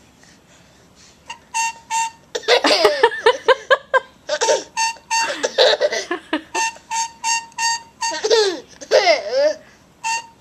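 A drinking straw giving a high, steady whistling squeak in short repeated pulses, about two to three a second, as a child sucks on it. Bursts of a child's laughter come in between.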